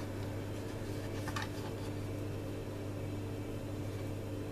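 A steady low electrical-sounding hum with a faint hiss, and a soft brief rustle about a second and a half in as hands press soft dough on a wooden board.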